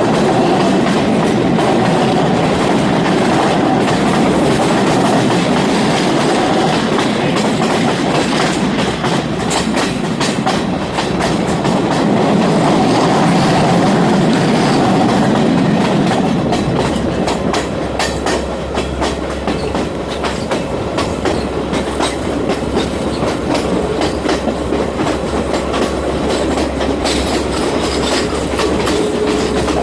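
Passenger train running along the track: a steady rumble of the carriage with the wheels clacking over rail joints, the clicks growing sharper and more frequent about a third of the way in. A low hum joins the rumble a little past halfway.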